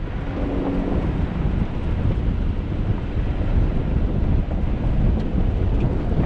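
Wind buffeting the microphone over the steady low rumble of a Jeep driving along a gravel dirt trail.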